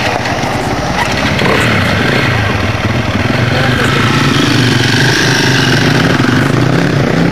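Engines of small off-road cars running as they drive slowly past on a dirt track: first a Lada Niva close by, then a Suzuki 4x4. The engine sound is steady and gets a little louder about a second in.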